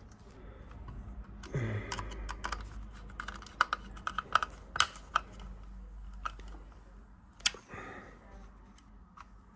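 Irregular small clicks and scrapes of a screwdriver working the terminal screws and wires on a Honeywell T6360B thermostat's terminal block, with sharper ticks scattered through, the loudest about 7.5 s in.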